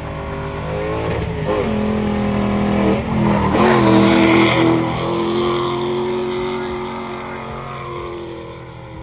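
Ford Mustang drifting: engine revving up and down on the throttle with tyres squealing, loudest as it slides past about four seconds in, then fading as it drives away.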